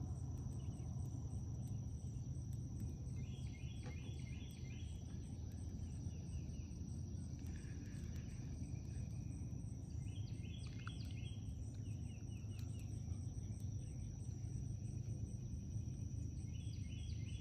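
Open-air lake ambience: a steady high insect drone over a steady low rumble, with short chirping phrases three times, several seconds apart.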